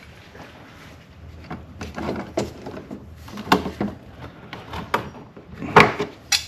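Scattered clicks and knocks of hand tools and plastic parts being handled while a screw is fitted on the engine cover, the sharpest knocks near the end.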